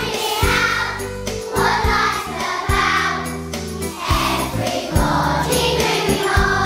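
A group of young children singing in unison over an instrumental accompaniment with held bass notes and a steady beat, a strong stroke about once a second.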